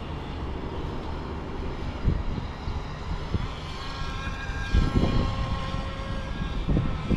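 Alpharev R308 RC speedboat's electric motor and propeller whining as it runs across the water, the whine coming up and rising slightly in pitch about four seconds in. A few low thumps break through, the loudest about five seconds in.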